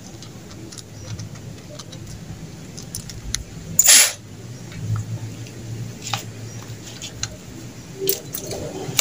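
Small metal parts and tools clinking and being handled during carburetor cleaning, with light scattered clicks over a low steady hum. About four seconds in comes one short, loud, hissy burst.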